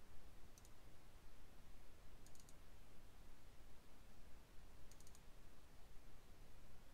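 Computer mouse button clicks: a single click, then two quick runs of double-clicks, the second about two and a half seconds after the first, over a faint steady low hum.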